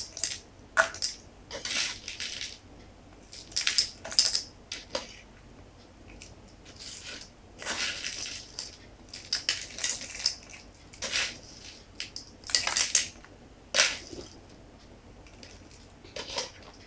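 Small coloured aquarium stones clattering and scraping against a glass bowl and a small plastic bottle as they are gathered up and dropped into the bottle, in irregular bursts of rattling with short pauses between them.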